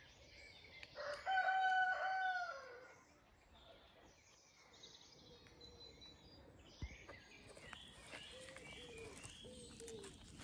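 A rooster crowing once, about a second in: a loud, held call lasting about a second and a half that drops in pitch at the end. Faint songbird chirps run behind it.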